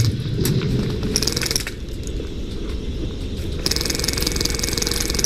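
Airsoft minigun firing two bursts, each a rapid mechanical rattle. The first burst runs for about a second and a half; the second starts just before four seconds in.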